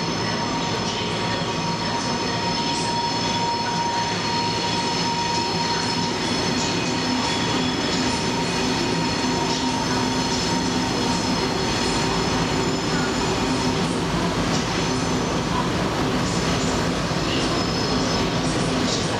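A 2M62U twin-section diesel locomotive's two-stroke diesel engines running under load as it hauls a container freight train past. The wagons roll by over the rails with a steady high-pitched wheel squeal from the curve.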